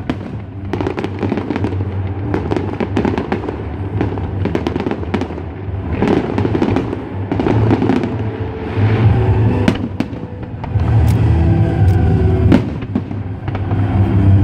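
Fireworks bursting and crackling, many pops close together, with music playing underneath.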